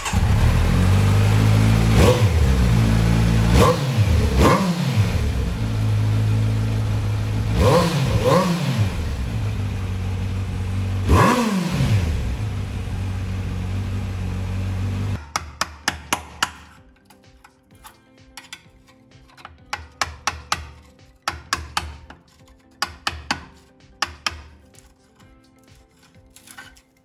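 Kawasaki Z900's inline-four engine running with the muffler removed, exhausting straight out of the open header pipe: a loud idle broken by about six quick throttle blips that rise and fall in pitch. It cuts off suddenly about fifteen seconds in, followed by a run of sharp clicks and scrapes from a screwdriver picking old gasket packing off the header outlet.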